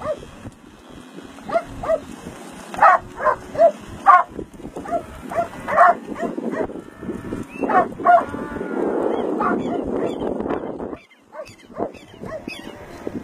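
A large herd of Hereford cattle calling, mixed with dogs barking in short repeated barks. A couple of seconds of steady rushing noise come after the middle, then a brief lull.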